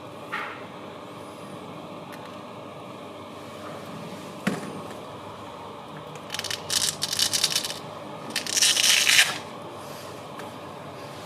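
A 1/16-scale RC rock crawler runs with a steady faint hum. There is a sharp knock about halfway through, then two bursts of scraping, crackling noise, each about a second long.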